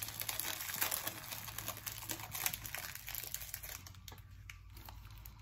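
Plastic snack wrapper crinkling and crackling as it is handled and opened, dying down about three and a half seconds in.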